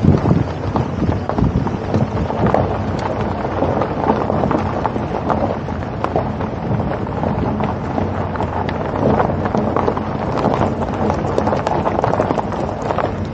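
Wind buffeting the microphone over a steady low rumble, with rapid irregular rattling and knocking, as from a camera riding on a moving vehicle along a road.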